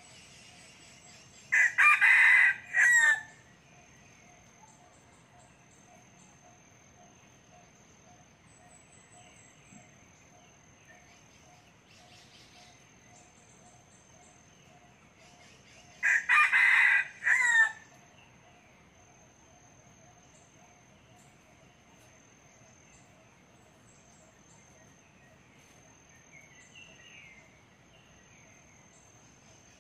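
Red junglefowl rooster crowing twice, about fourteen seconds apart: each a short, clipped crow of about a second and a half, broken into a few parts, the wild bird's cut-off crow.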